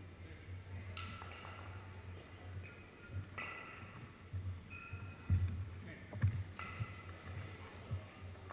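Two competition kettlebells being cleaned and jerked over and over in a long cycle set: irregular dull thumps as the bells land in the rack and drop, with voices in the background.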